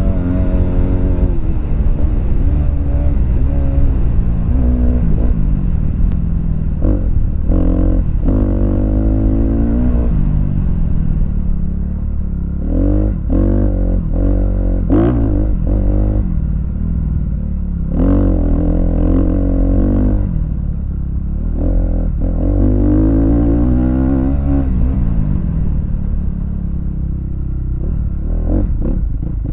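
Dirt bike engine revving up and down as it is ridden around a motocross track, the pitch climbing through each gear and dropping off when the throttle is rolled off, over a steady low wind rumble.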